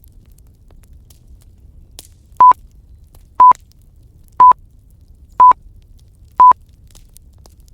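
Pomodoro timer alarm beeping five times, one short high beep a second, signalling the end of a study or break period. A faint fire crackles underneath.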